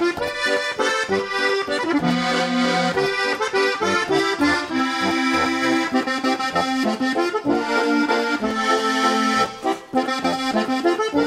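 Steirische Harmonika (diatonic button accordion) playing a traditional tune: held melody notes over changing bass notes and chords.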